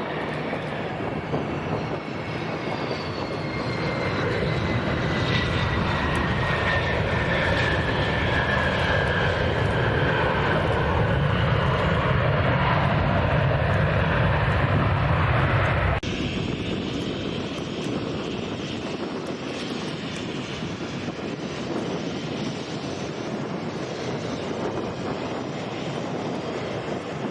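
Jet airliner engines passing close by: a loud rush with a high whine falling slowly in pitch, loudest shortly before it cuts off suddenly about sixteen seconds in, leaving a quieter steady rush of engine noise.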